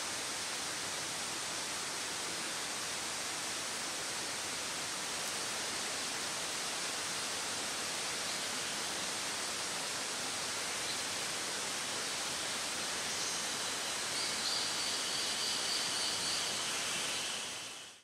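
Steady rushing outdoor forest ambience, with faint, high, repeated calls of a distant small creature starting about two-thirds of the way in; the sound fades out just before the end.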